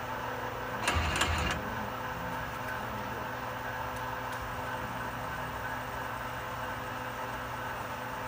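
Milltronics ML15 CNC lathe running, its spindle turning a workpiece with a steady hum and several held whining tones. About a second in, a loud clatter lasting about half a second, fitting the tool turret indexing to a new tool.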